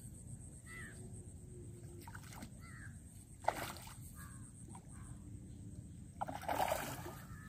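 A hooked fish splashing at the water's surface against a bent rod: a brief splash about three and a half seconds in and a longer, louder splash near the end. Crows caw faintly.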